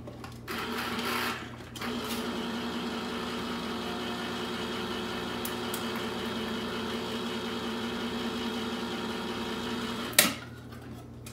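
Electric can opener cutting around the lid of a large can: a steady motor hum that runs for about a second, pauses briefly, then runs about eight seconds more and stops with a sharp click near the end.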